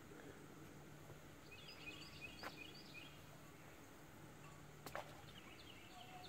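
Near-silent lakeside ambience with a small bird chirping a quick run of notes about two seconds in and again near the end, and two sharp clicks, the louder one about five seconds in.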